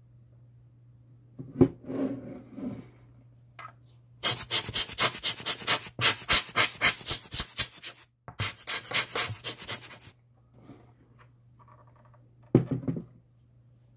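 Rapid back-and-forth rubbing strokes, about six a second, in two runs with a short break between them. Some handling noise comes before them and a single knock near the end.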